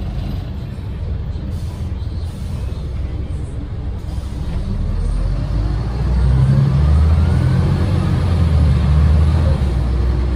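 Renault PR100.3 bus's 9.8-litre turbocharged six-cylinder diesel heard from inside the cabin, running under load and getting louder about six seconds in, with a faint whine that rises and then falls above the engine hum.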